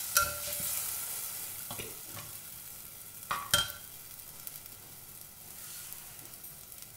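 Freshly poured tamarind water sizzling on fried onions and spice masala in a hot clay pot, the sizzle slowly dying down. A steel slotted spoon knocks against the pot a few times as it is stirred, loudest about three and a half seconds in.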